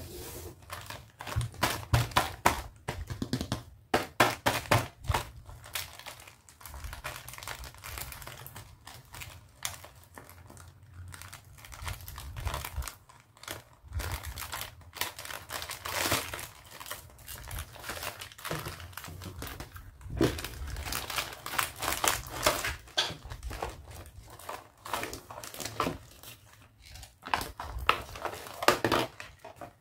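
Clear plastic packaging bag and film wrapping crinkling and rustling in irregular crackles as hands handle it and open it up.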